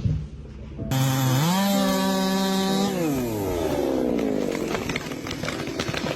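Chainsaw engine starting up about a second in, revving up to full speed, holding there for about a second and a half, then winding down with a falling pitch. Scattered light clicks and knocks follow.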